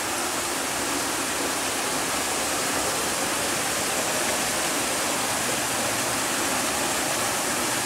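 Water rushing steadily through a concrete sluice gate, a continuous even roar of churning water.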